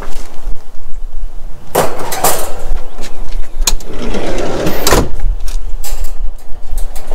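Wind buffeting the microphone, with two loud stretches of a wire cage scraping and rattling on concrete as it is set down and handled, about two seconds in and again around four to five seconds in.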